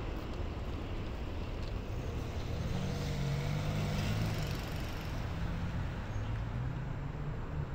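A car, a dark SUV, driving slowly past. Its low engine hum grows to its loudest about four seconds in and then fades away, over a steady background of city traffic.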